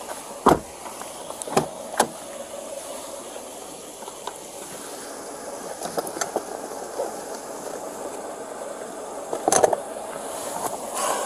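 Steady vehicle and road noise, with a few sharp clicks and knocks: the loudest about half a second in, two more around a second and a half to two seconds in, and a cluster near the end.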